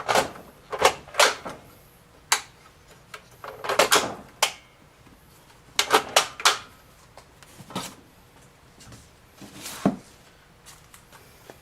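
Lyman Revolution rotating gun vise being turned by hand with a rifle clamped in it: irregular clicks and knocks, some in quick clusters, as the vise is tilted and its rotation engagement points catch.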